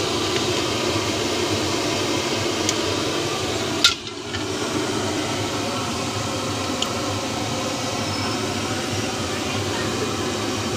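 Hot oil sizzling steadily as finger fries deep-fry in a kadhai, with voices in the background and a single sharp click about four seconds in.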